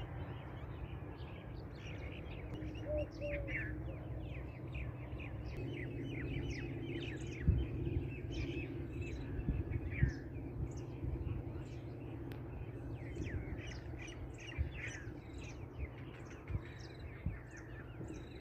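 A spring-morning chorus of many small songbirds chirping and singing in rapid, high, falling notes over a steady low rumble, with a couple of brief low thumps about midway.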